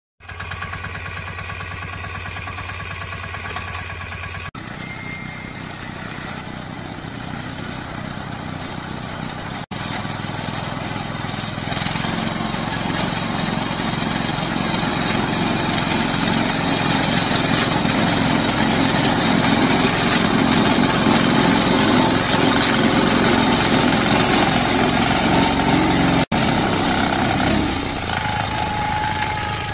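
Small engine of a self-propelled reaper binder running steadily as the machine cuts and binds wheat. The sound breaks off sharply three times where clips are joined, and is loudest through the middle stretch.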